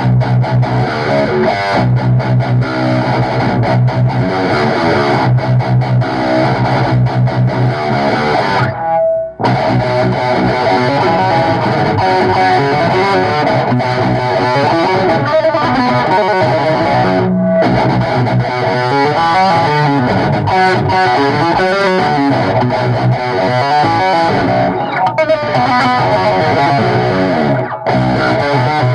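Distorted electric guitar with bass guitar playing a heavy riff, chugging in short low pulses over the first several seconds. The sound breaks off almost completely for a moment about nine seconds in, then the riff carries on.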